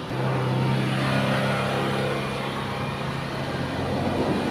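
Engine of a loaded small pickup truck driving past and away up the road: a steady low engine hum with tyre and road noise, easing a little near the end.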